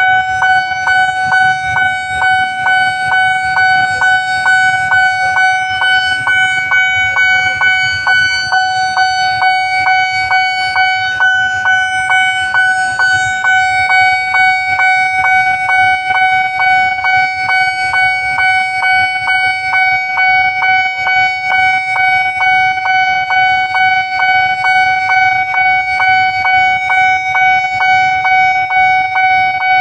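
Railway level-crossing warning alarm sounding without a break: a steady electronic tone that pulses about twice a second.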